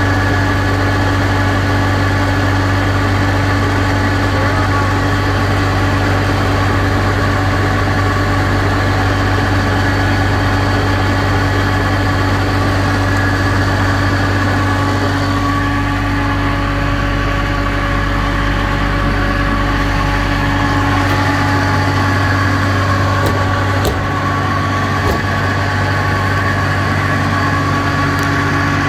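Thermo King trailer refrigeration unit's diesel engine running steadily, a constant hum with its fans. The low drone shifts slightly about three-quarters of the way through.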